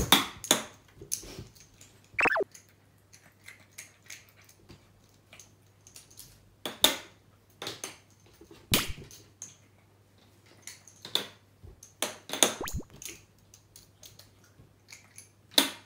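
A cat's paws and claws clattering on a slatted plastic roll-up bathtub cover: scattered sharp clicks and knocks, with a short falling squeak about two seconds in.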